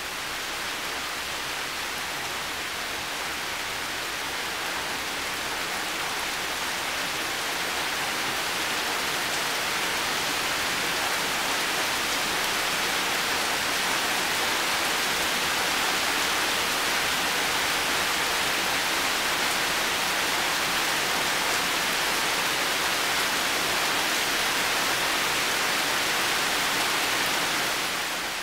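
Heavy rain falling steadily, a dense even hiss of drops, growing slightly louder over the first several seconds and easing off just before the end.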